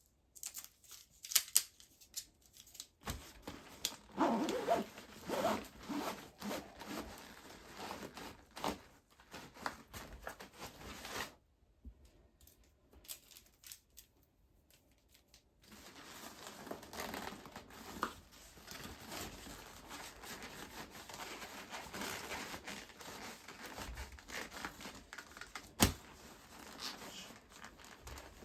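Rustling, crinkling and scraping of nylon backpack fabric and mesh as tent and tarp poles are worked into the pack's outer net alongside a sleeping mat, with scattered light clicks and knocks. It stops for a few seconds about halfway through, and there is one sharp click near the end.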